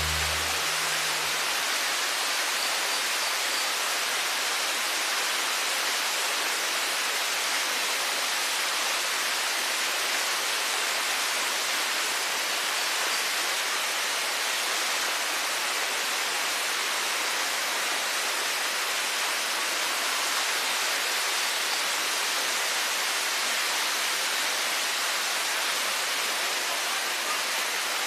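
Steady rush of a waterfall: an even hiss of falling water that holds at one level throughout.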